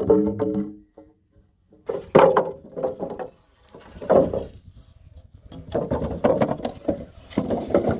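Long wooden roof poles knocking and clattering against each other as they are dragged and shifted on a pile, in several separate bursts of hollow wooden knocks. A pole dropped just before rings briefly at the start.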